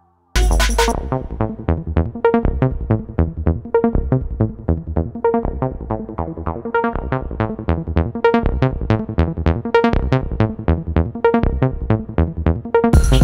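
Electronic background music that starts suddenly about half a second in, a steady beat of quick repeated synthesizer notes, growing fuller near the end.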